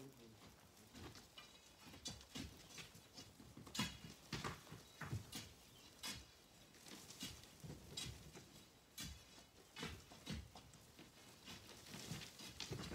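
Scattered, irregular knocks, clicks and scrapes of stone and gravel, with the loudest knock about four seconds in.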